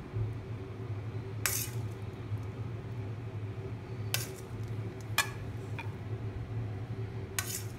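Four short clinks and rustles as fried onions and almonds are scattered over rice in a glass baking dish, over a steady low hum.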